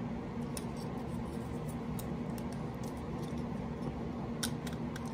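Faint scattered clicks and handling noises of a Probe 601 smoke alarm's plastic housing as a battery is pressed into it, over a steady low hum.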